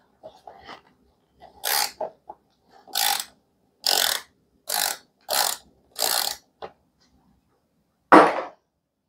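Ratchet wrench clicking in a run of about six quick back-strokes, roughly two-thirds of a second apart, as it loosens a fork pinch bolt. Near the end comes one louder, duller rasp.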